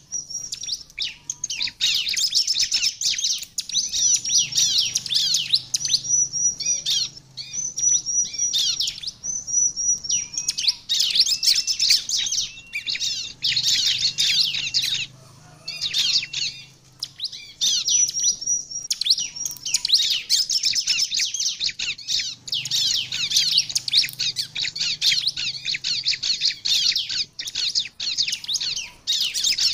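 Bar-winged prinia (ciblek) singing vigorously: fast, high-pitched chattering runs with a few held whistled notes, broken by short pauses every few seconds.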